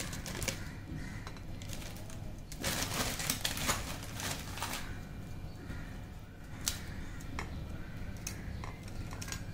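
Dry rusk toasts being set and broken into a glass dish: light taps, scrapes and crumbling, busiest about three to five seconds in.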